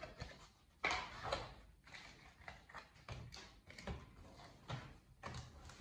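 Pokémon cards and booster packs being handled on a table: scattered rustling and light taps, with one sharper knock about a second in.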